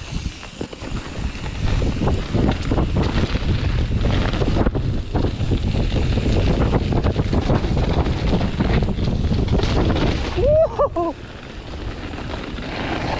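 Wind buffeting the microphone of a chest-mounted GoPro on a mountain bike descending a dirt trail at speed, over the rumble of the tyres and the rattle of the bike on bumps.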